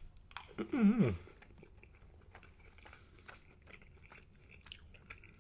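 Close-miked chewing of a mouthful of spicy rice with egg and melted gouda cheese: quiet, wet mouth clicks and smacks. A short falling hum of voice comes about a second in.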